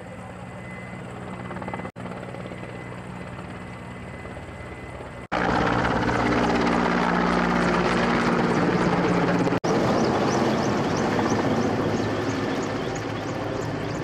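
Firefighting helicopter flying with a water bucket slung beneath it: a steady drone of turbine and rotor. It jumps much louder about five seconds in, where it passes close overhead, and a fast, regular rotor beat can be heard near the end.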